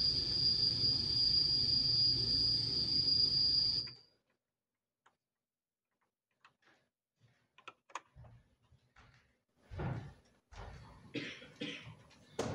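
A loud, steady mechanical-sounding drone with a high squealing tone over a low rumble, like train wheels. It cuts off suddenly about four seconds in. Near quiet follows, then scattered small knocks, clicks and rustles as objects are handled at a table on stage.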